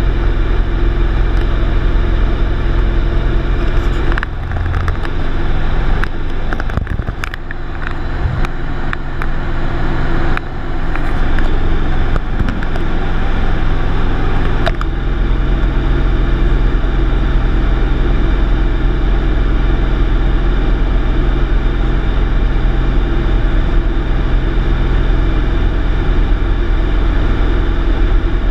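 Light aircraft's engine and propeller droning steadily, heard from inside the cabin. From about four seconds in until about fifteen seconds in, the drone is rougher and a little quieter, with scattered crackles and clicks over it.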